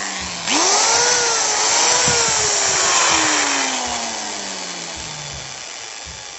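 Electric hand-held angle grinder, no disc fitted, running free: it is winding down, is switched on again about half a second in and comes up to speed with a brief dip, then is switched off and spins down with a steadily falling whine. It runs again because the fault was only a broken wire, now reconnected.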